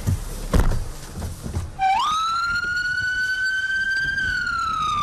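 Ambulance siren sounding one slow wail: the pitch jumps up a little under two seconds in, climbs and holds, then begins to slide down near the end. Before it, street noise with a thump about half a second in.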